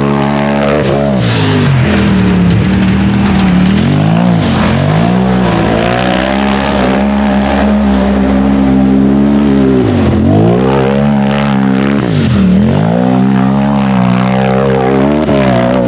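Race UTV buggy engine revving hard at high revs. Its pitch plunges and climbs back about five times, briefly each time.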